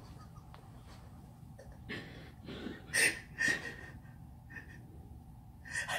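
Quiet room with a few short, breathy bursts of stifled laughter and snorting breaths, about two to three and a half seconds in and again near the end.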